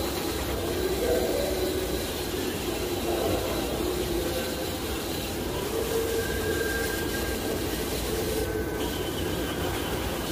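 A power sander running steadily, its whir shifting slightly in pitch.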